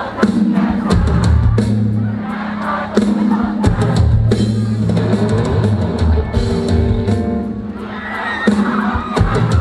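Live band music, loud and amplified: a drum kit with heavy bass notes under the song. Crowd voices rise over the music near the end.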